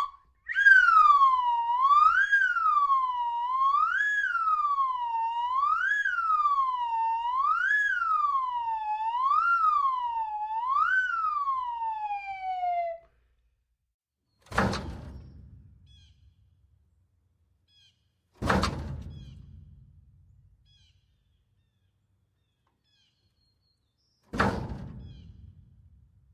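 A siren wailing, its pitch rising and falling about every two seconds, then sliding down and stopping about halfway through. Three heavy thuds follow several seconds apart, each fading away.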